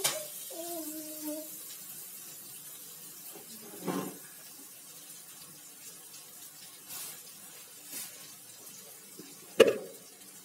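Garlic and pepper paste frying in hot oil in a pan, a steady sizzle. A knock comes about four seconds in, and a sharp metal clank near the end.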